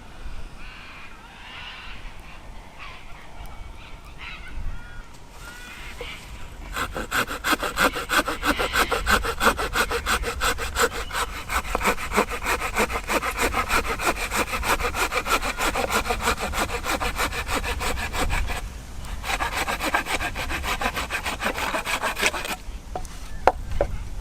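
Hand saw cutting through a piece of wood with quick, even back-and-forth strokes, starting about seven seconds in, pausing briefly near the end, then carrying on for a few more seconds.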